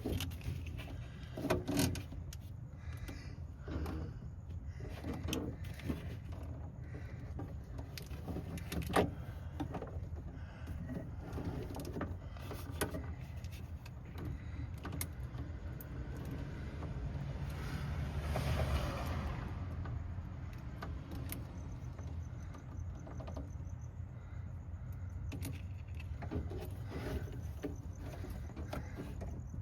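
Scattered clicks, taps and light knocks of hands handling and routing car wiring and cables, over a low steady hum. Around the middle, a rushing noise swells and fades over about three seconds.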